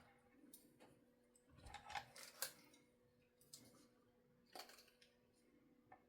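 Faint, scattered clicks and taps of small tools and guitar parts handled on a workbench during soldering and wiring. The loudest taps fall about two and a half seconds in.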